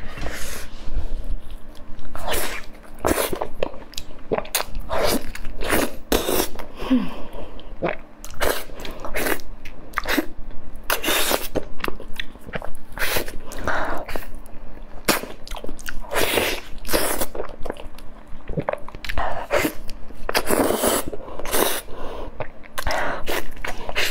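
Plastic-gloved hands pulling apart and handling soft, ripe durian flesh, close to the microphone, in a quick, irregular run of short rustling, sticky sounds. Near the end comes a bite into a durian pod.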